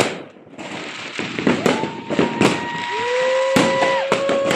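Fireworks and firecrackers going off in quick succession, a string of sharp bangs and cracks. Through the second half, two long steady whistle-like tones overlap, one higher and one lower, and both cut off near the end.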